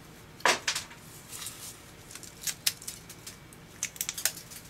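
Irregular clicks, taps and crackles of the sawn-open casing of an old carbon-zinc 6-volt lantern battery being handled and pried at by hand. The loudest click comes about half a second in, and a quick cluster of clicks comes near the end.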